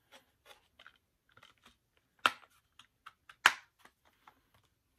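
Plastic Blu-ray case and its paper cover insert being handled while the reversible artwork is turned around: light rustles and small clicks, with two sharp snaps of the case about a second apart near the middle.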